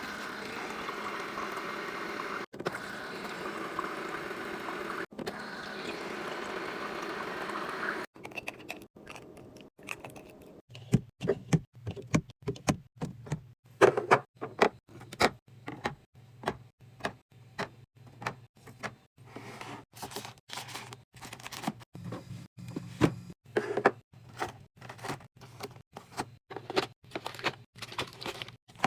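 A steady rushing noise for about eight seconds, then a long run of separate clicks, taps and knocks, like plastic containers, lids and packaged food being handled and set down while a fridge is restocked.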